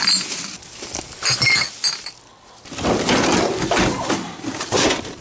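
Glass bottles clinking together, with short high ringing tones, then after a brief lull a longer stretch of clattering and rustling as things are rummaged through in a bin.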